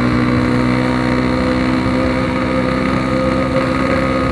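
Yamaha RX-King's 135cc single-cylinder two-stroke engine running at a steady speed through a Packing Power PK2 aftermarket exhaust.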